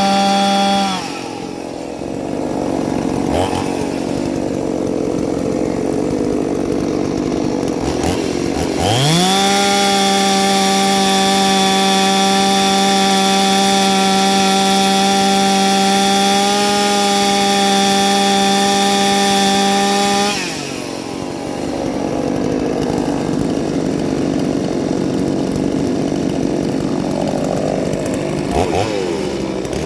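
Ported two-stroke chainsaw run at full throttle. It drops off about a second in, climbs back to a high steady scream at about nine seconds and holds there for some eleven seconds, drops again, and revs back up near the end.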